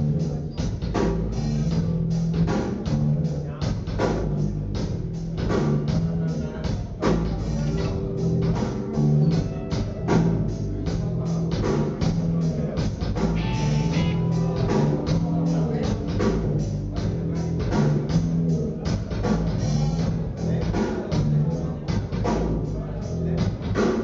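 Live rock band playing: drum kit with a steady beat, electric guitar and a bass guitar line.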